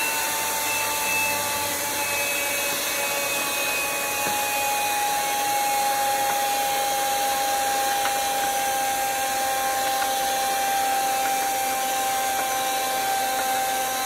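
Handheld vacuum cleaner running steadily, a high motor whine over a rush of air, as it sucks dust off a roaster's metal intake fan screen. The whine sinks slightly in pitch a few seconds in and then holds.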